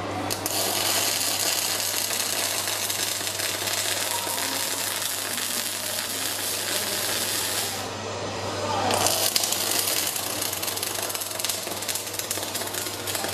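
Robotic arc welding: a dense, continuous crackle from the welding arc over a steady low hum. The crackle stops for about a second two-thirds of the way in, then the arc strikes again.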